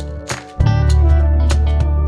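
Background music with a heavy bass and a steady beat, which drops out briefly about half a second in and comes back.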